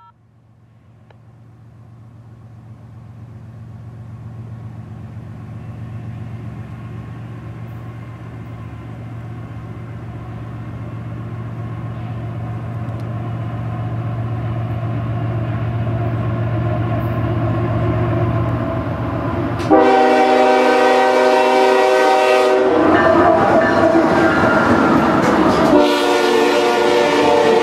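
Canadian Pacific diesel freight locomotive approaching, its engine a steady low hum that grows louder. About twenty seconds in, the locomotive's air horn sounds a loud chord for about three seconds, then the rumble of the passing train, then the horn again as the locomotive goes by.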